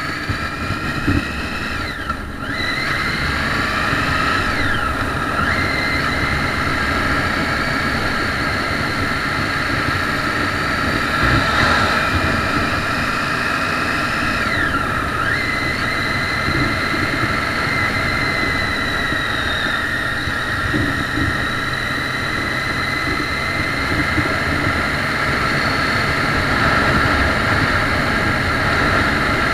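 Triumph Street Triple's inline three-cylinder engine running under way, with wind rush over the microphone. The engine note drops sharply and climbs again a few times, around 2, 5 and 15 seconds in.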